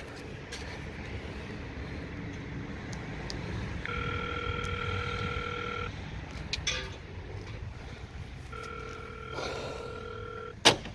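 Hikvision video intercom panel sounding its call tone: two steady electronic tones, each about two seconds long, a couple of seconds apart. A sharp click near the end is the loudest sound.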